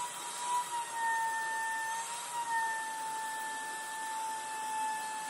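Wet/dry vacuum running steadily with a high motor whine, sucking the water out of a toilet bowl and tank.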